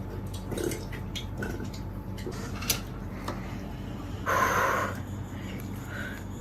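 Quiet eating at the table: scattered small clicks and knocks, with a short breathy hiss of about half a second a little after four seconds in.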